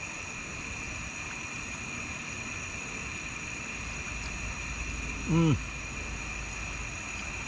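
A man's brief hummed vocal sound, about five seconds in, while he is chewing food. Underneath is a steady background hiss with a constant high-pitched whine, and a low rumble that starts about four seconds in.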